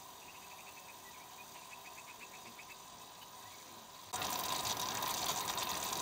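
Ferric nitrate and glycine solution boiling in a glass beaker on a hot plate. It is faint at first, then a loud, steady bubbling hiss starts suddenly about four seconds in.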